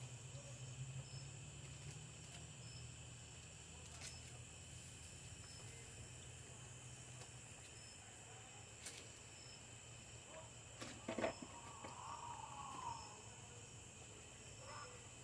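Crickets and other night insects chirping steadily and faintly, over a low steady hum from the lit propane stove burner. A few faint clicks and a short wavering sound come about eleven to thirteen seconds in.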